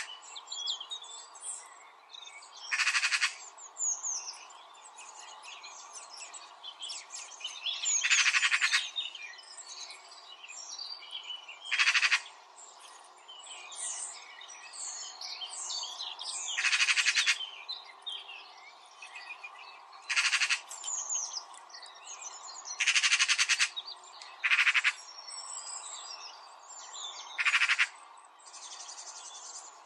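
Birds chirping, with a louder, rapidly pulsing call that repeats about every three to five seconds.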